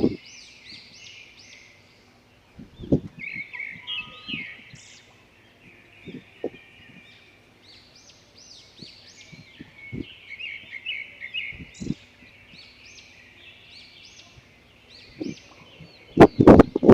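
A flock of small birds chirping and chattering continuously, with gusts of strong wind buffeting the microphone in scattered low thumps, the heaviest near the end.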